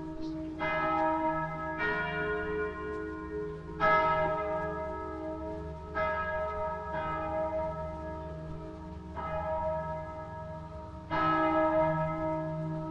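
Church bells ringing, struck roughly every one to two seconds at uneven intervals. Bells of differing pitch sound in turn, each stroke ringing on into the next.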